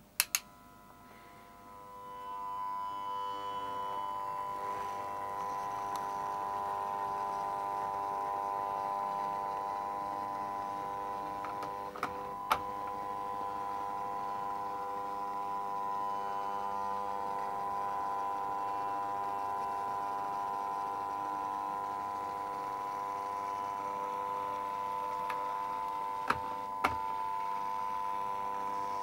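Electric motors of two OO gauge model Class 42 Warship diesel locomotives humming steadily as they creep along at slow speed. The hum sets in about two seconds in, with a few sharp clicks over the track, in pairs midway and near the end.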